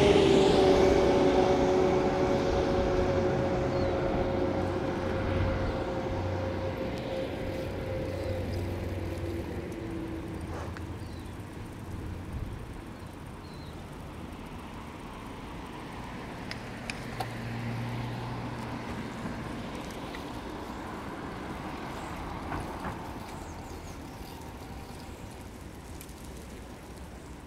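A motor vehicle passes close by, its hum sinking slightly in pitch as it fades away over about ten seconds. A quieter steady street background follows.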